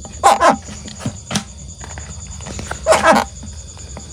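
A dog barking a few times, over a steady high trill of night insects.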